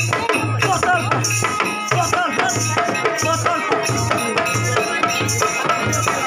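Maithili Holi folk song playing, with a steady drum beat about twice a second, a shaker keeping time and a bending melody line over it.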